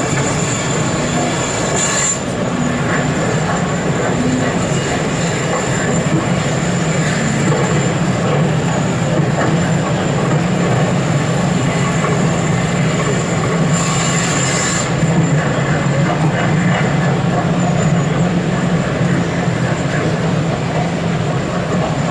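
N gauge model trains running on an exhibition layout: a steady low hum with a thin high whine, and two short hissy bursts, about two seconds in and again about fourteen seconds in.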